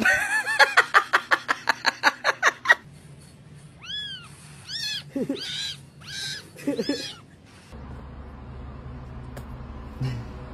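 Domestic cats vocalizing. First comes a rapid string of short, repeated pitched cries, about five a second for nearly three seconds. A pause follows, then four or five meows, and after that only a low steady hum.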